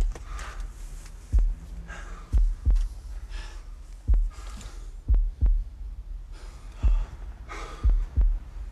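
A slow heartbeat-like bass drum pulse: paired low thuds about every second and a half, with a faint breathy hiss between them.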